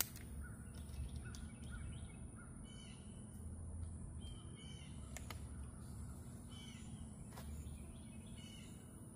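Wild birds chirping and calling in short scattered notes over a steady low rumble and a thin, steady high whine. A single sharp metallic click right at the start as the PCP air rifle's action is worked; no shot is heard.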